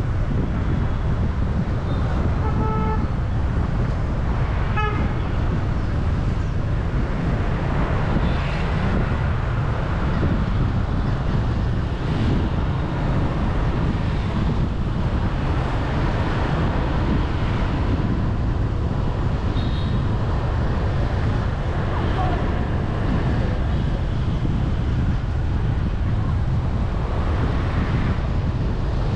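City street traffic heard from a moving vehicle: a steady rumble of engines and road noise, with a short vehicle horn toot about two to three seconds in and a few fainter beeps later.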